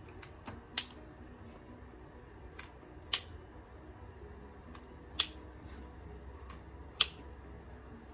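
Flat-iron hair straightener clacking as its plates snap shut on a section of hair: four sharp clicks about two seconds apart.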